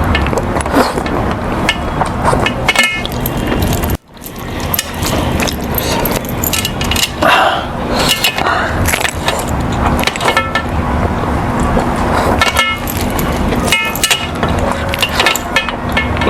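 Loud, close chewing and smacking of a man eating chicken, picked up by a camera's built-in microphone, with road traffic and short horn honks behind. The sound drops out briefly about four seconds in.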